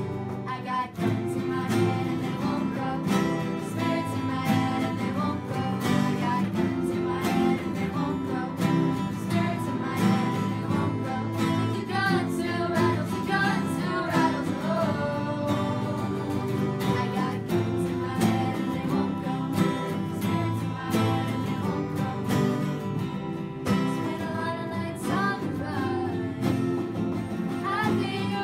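A small ensemble of strummed acoustic guitars and cellos accompanying singing voices, playing steadily through.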